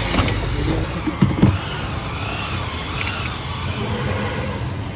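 Farm machine engine running steadily, with a few sharp knocks and clatters about a second in.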